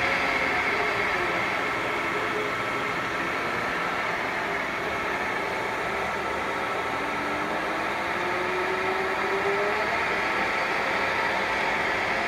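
Huron MU 55 milling machine running: a steady mechanical whir with a whine that slides down about a second in and rises slowly in pitch through the middle.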